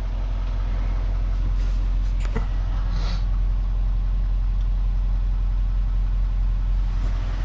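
Vehicle engine running with a steady low rumble, a faint click or two near the middle.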